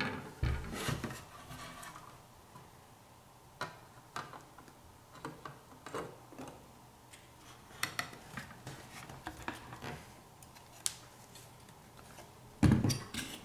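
Light clicks and taps of a metal heat sink being handled and seated onto a game console's circuit board, with a louder knock near the end as the board is turned over on the table.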